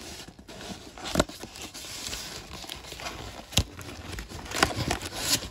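Cardboard box being handled: the cardboard rubbing and scraping, with several sharp knocks, the clearest about a second in, one in the middle and a few more near the end.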